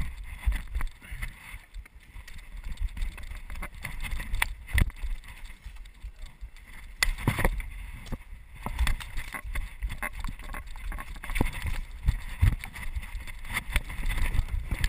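Wind and motion rumble on a body-worn camera during a parkour run, broken by irregular knocks and scuffs of footfalls and hand contacts on concrete and a metal picnic table as the runner vaults over them.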